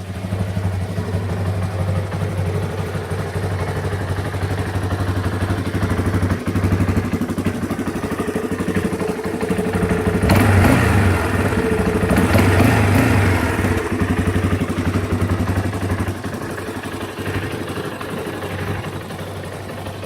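Yamaha Raptor 350R ATV's single-cylinder four-stroke engine running steadily. It gets louder and rougher for a few seconds around the middle, then drops back to a steadier note.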